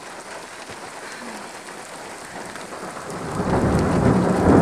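Steady rain hissing, then about three seconds in a roll of thunder begins, a low rumble that builds and stays loud to the end.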